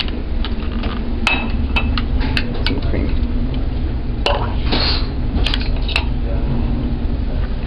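Dishes and cutlery clinking now and then, a scatter of sharp clicks over a steady low hum and faint background voices.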